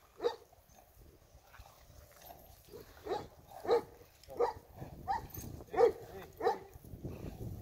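Short, sharp animal calls: one just after the start, then a run of six about two-thirds of a second apart.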